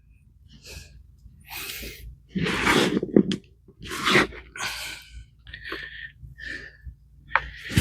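Hands rummaging and scraping through compost in a potato-growing bucket, a series of short, irregular rustling scrapes while searching for small potatoes.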